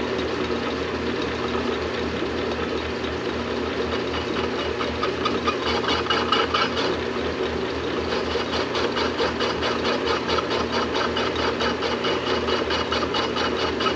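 Metal lathe running steadily with a workpiece turning in its 3-jaw chuck. About four seconds in, a fast, even ticking joins the running sound.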